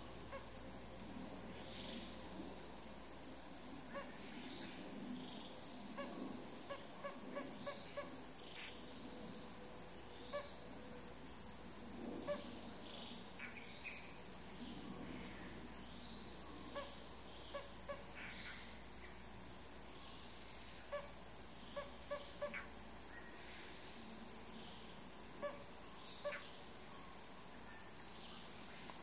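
Forest ambience: a steady high-pitched insect drone with scattered short bird call notes, some in quick runs of three or four.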